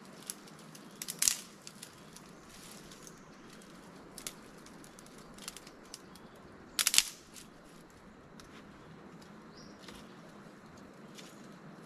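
Scattered knocks and clatters of things being handled, the two loudest about a second in and about seven seconds in, over a steady low rushing noise.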